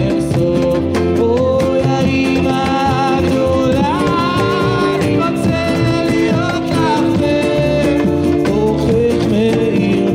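Live acoustic guitar strummed in a steady rhythm under a sung melody.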